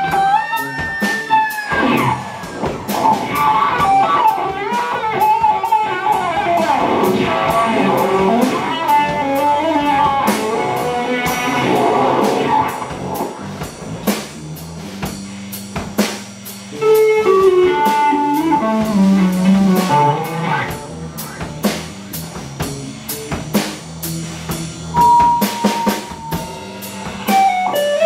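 Live blues-rock band: a fuzz-driven electric guitar (Stratocaster through fuzz and Uni-Vibe) plays a lead with bent and sliding notes over a drum kit. About 25 s in, one long guitar note is held and sags slightly in pitch.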